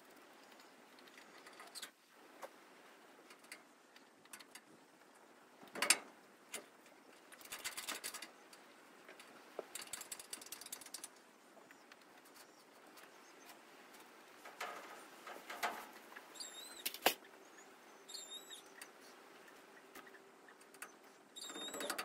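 Faint scattered clicks, knocks and short rustles of hands working windbreak netting and its clips, with a few short high chirps near the end.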